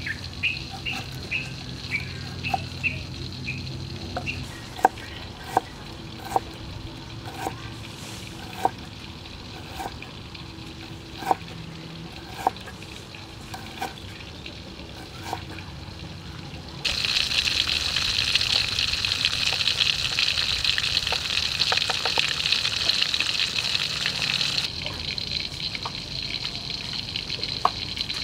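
Cleaver-style kitchen knife slicing fresh ginger on a wooden chopping block, sharp chopping strokes a little under one a second. About 17 seconds in, a loud steady hiss starts suddenly and cuts off about eight seconds later.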